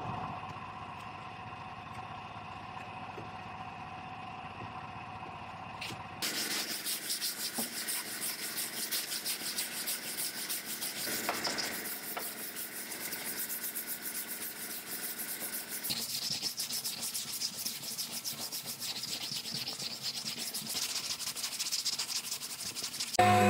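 Hand sanding of cured plastic body filler on a car hood with a sanding block: quick back-and-forth rasping strokes of sandpaper. It starts abruptly about six seconds in, after a quieter stretch.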